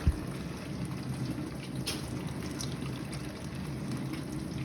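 Water dripping and trickling inside a Zanussi dishwasher's tub after the spraying has stopped, over a steady low hum, with a short low knock right at the start.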